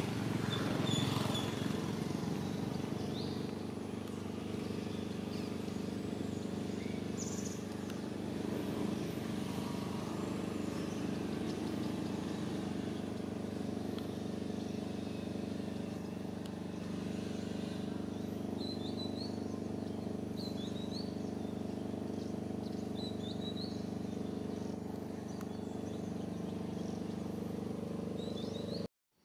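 A steady, low engine hum runs throughout, with a few short bird chirps about two-thirds of the way through and again near the end; the sound cuts off abruptly just before the end.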